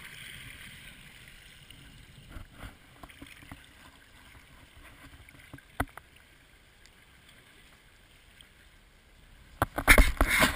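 Water rushing and splashing along a sea kayak's hull as it is paddled through choppy water, with a few sharp knocks. In the last second, a run of loud rapid knocks and rumbles.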